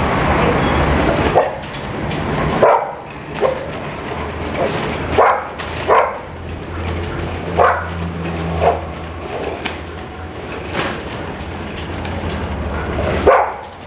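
A dog barking about ten times at uneven intervals while running on a slatted treadmill, over a steady low rumble.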